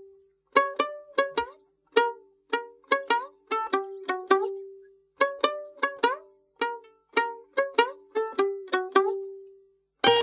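Background music: a light tune of short plucked-string phrases, each note starting sharply and fading, with brief pauses between phrases. A fuller passage with more notes comes in near the end.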